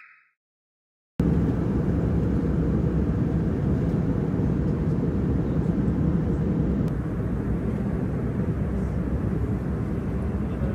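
Airliner cabin noise in flight: a steady, even rushing of engines and airflow heard from inside the passenger cabin, starting suddenly about a second in. Just before it, the last rising note of a chime fades out.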